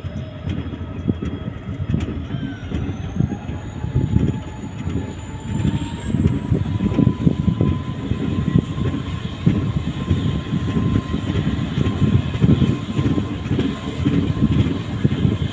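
Passenger train running at speed, heard from an open coach doorway: steady wheel-and-rail noise, with a faint whine that rises in pitch over the first several seconds and then holds steady.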